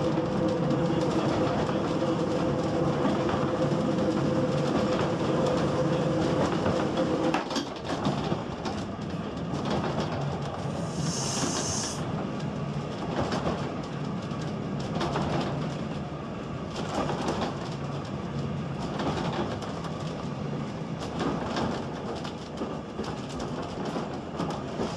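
GWR steam railmotor No.93 running, with a rumbling, clattering railway noise. A steady two-note hum stops about seven seconds in. A brief high hiss comes around eleven seconds in, and irregular knocks and clatter follow.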